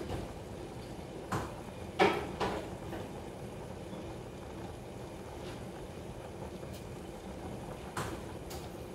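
Covered skillet of chicken and bell pepper sauce simmering on a gas stove beside a pot of boiling pasta water: a steady bubbling. A few short sharp clicks break it, the loudest about two seconds in and another near the end.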